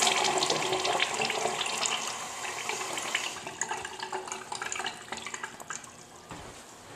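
Crane urinal flush tailing off: rinse water running down the bowl and gurgling into the drain, fading steadily as the flush ends.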